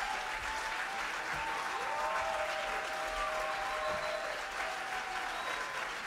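Concert audience applauding steadily, with a few long calls from voices over the clapping.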